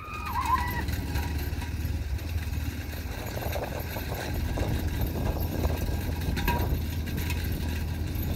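Motorcycle engine running steadily at speed on a dirt track: a low, even drone with road rumble. A brief shout comes just after the start.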